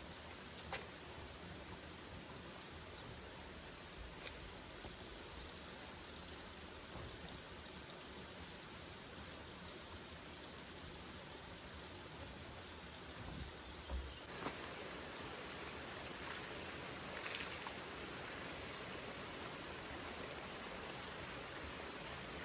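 Insects, crickets or similar, singing in a steady high-pitched chorus, with a second call pulsing on and off every second or two for the first two-thirds. A steady rushing hiss joins about two-thirds of the way through.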